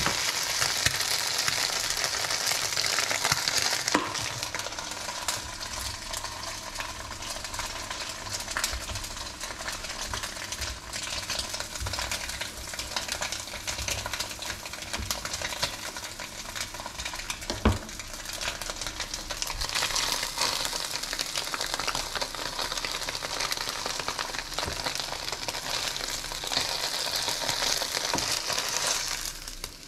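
Eggs, ham and cheese frying in a nonstick pan: a steady sizzle that is louder at first, eases through the middle stretch and grows louder again in the last third. A couple of sharp knocks stand out, one early and one a little past halfway.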